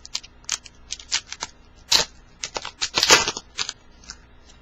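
Baseball trading cards being flicked and shuffled in the hands: a string of sharp card snaps, with a louder crinkling burst of a foil pack wrapper about three seconds in.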